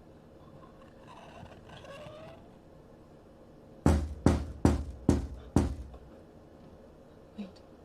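Five heavy bangs on a door in quick succession, a little over two a second, starting about four seconds in.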